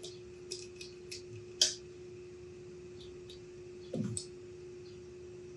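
Light metallic clicks and taps from handling a pump oil can and small steel fractal-vise jaw parts while oiling them, the loudest click about a second and a half in, and a heavier knock about four seconds in as the oil can is set down on the wooden bench. A steady low hum runs underneath.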